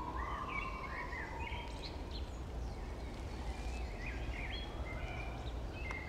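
Several woodland birds singing, with short chirps and whistles scattered throughout and one longer whistle in the first second or so, over a steady low background rumble.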